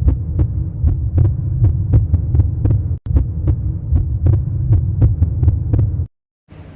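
Edited-in intro sound: a deep, even pulse of about two and a half beats a second over a low hum. It breaks for an instant about three seconds in and stops abruptly about six seconds in, and a steady noise begins just before the end.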